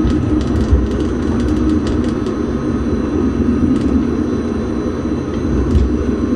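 Bybanen light-rail tram (Stadler Variobahn) running along street track, heard from inside the vehicle: a steady noise of wheels on rails and drive, with a few faint ticks.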